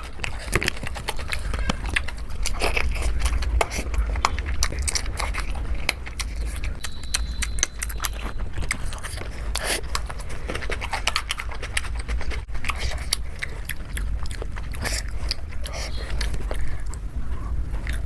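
A person eating close to the microphone: chewing and biting, with many quick irregular mouth clicks, over a steady low hum.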